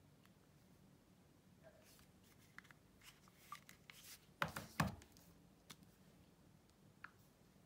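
Quiet handling of smartphones: light taps, clicks and rustles of fingers on phone screens and cases, with two sharp knocks close together about four and a half seconds in as a phone is put down on a hard tabletop.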